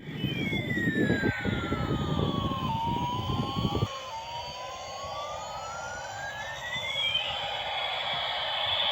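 Battery-operated toy helicopter's electronic siren sound effect: one slow tone that slides down and then back up over about seven seconds, over a noisy hiss. A rough low buzz stops about four seconds in.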